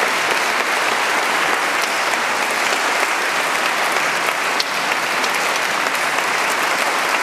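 Audience applauding steadily, the clapping echoing in a large stone church.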